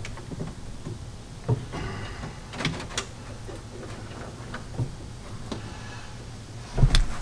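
Scattered light clicks and knocks of hands handling wiring and plastic dashboard parts under a car's dash, with a louder cluster of thumps near the end.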